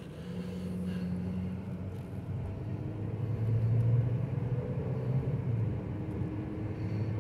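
Cabin sound of a 2013 Chevy Cruze LT accelerating from low speed: the Ecotec four-cylinder engine's low hum over road and wind noise, swelling about four seconds in.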